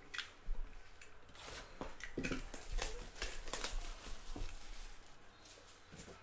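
Cellophane shrink wrap being torn and crumpled off a cardboard trading-card hobby box: a run of sharp crinkling crackles over the first four or so seconds, with a couple of dull knocks from the box being handled.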